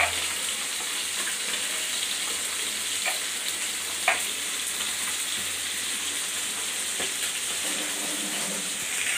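Drumstick pieces and pabda fish sizzling steadily in hot mustard oil in a frying pan. A steel spoon clinks sharply against a glass bowl three times.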